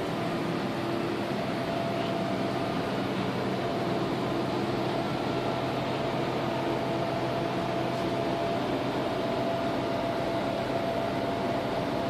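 Steady mechanical hum inside the passenger saloon of a Pesa SA133 diesel railbus: the running ventilation and machinery of the railcar, an even whir with a thin steady whine in it.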